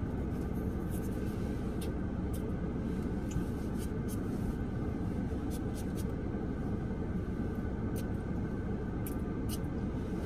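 A pump-spray bottle of air-freshener scent sprayed around a car's cabin: about a dozen short, sharp hisses at uneven intervals over a steady low hum from the car.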